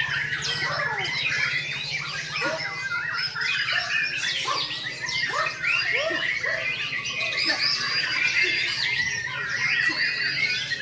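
Several white-rumped shamas singing at once: a dense, continuous tangle of overlapping whistles, trills and chirps, over a steady low hum.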